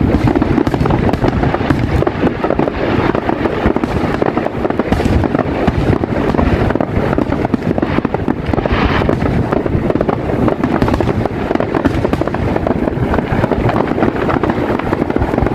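Fireworks going off in a rapid, continuous barrage: dense, overlapping bangs and crackles with no pause between them.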